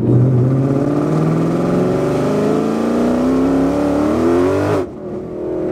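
Whipple-supercharged 2018 Mustang GT's 5.0 Coyote V8 making a wide-open-throttle pull in third gear from about 1800 RPM, heard from inside the cabin, its note climbing steadily in pitch. Near the end the engine sound drops away abruptly.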